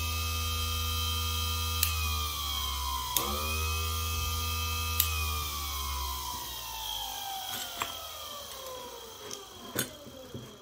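36V 800W electric quad-bike motor whining at full speed with only the controller and battery connected. It dips briefly about two seconds in and picks up again, then loses power about five seconds in and winds down with a falling whine, with a few sharp clicks from the connectors. The faulty controller is sending battery power straight to the motor, which the owner takes for a short inside the controller.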